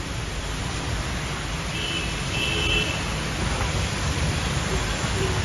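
Heavy rain and road traffic in a city street: a steady hiss of rain over a low rumble of vehicles, with two short high tones about two seconds in.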